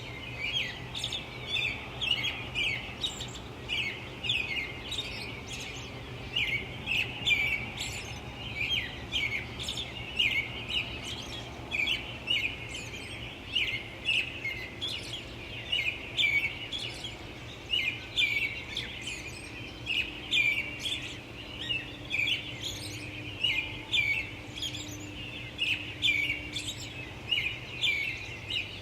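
Many small birds chirping and twittering continuously in quick, overlapping calls, over a steady low hum of light distant traffic.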